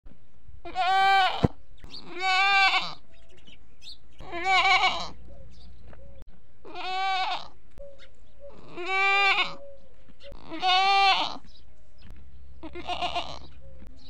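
Goats bleating: seven separate calls, each under a second long, about every two seconds, some with a wavering tremble. A sharp click about a second and a half in.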